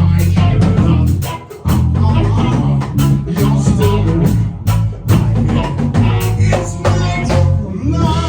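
Band music with guitar, drum kit and a strong bass line, with a brief break about a second and a half in.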